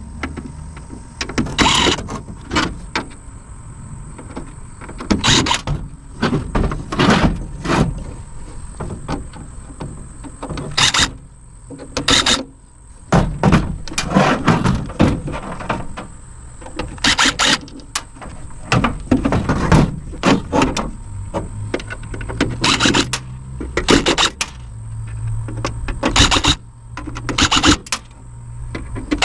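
Cordless power screwdriver running in short bursts of about a second each, with irregular pauses, backing screws out of a Kenwood double cassette deck's metal case.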